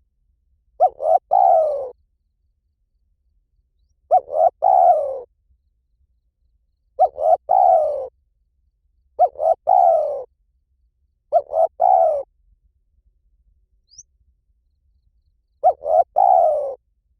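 Spotted dove cooing: six phrases a couple of seconds apart, each two short notes running into a longer falling coo, with a longer pause before the last one. A faint, brief high chirp sounds about two-thirds of the way through.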